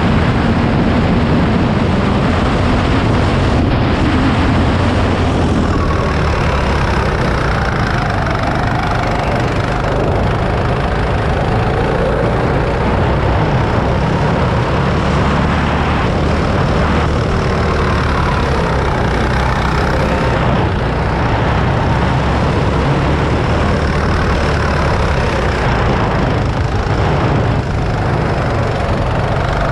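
Go-kart's small petrol engine running at speed, heard from the driver's seat, its note rising and falling with the throttle through the corners.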